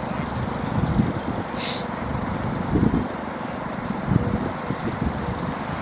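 Radio-controlled aerobatic model airplane in flight, its motor and propeller giving a faint steady drone under gusty wind buffeting the microphone, with a brief hiss about two seconds in.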